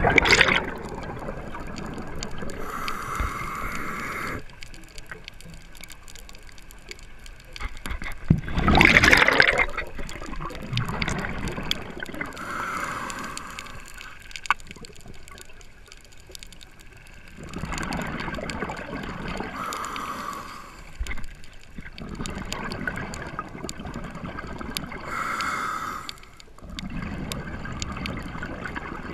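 Scuba diver breathing through a regulator underwater: a short hiss on each inhale and a gurgling rush of exhaled bubbles, several breaths in all, the loudest bubble rushes at the start and about nine seconds in.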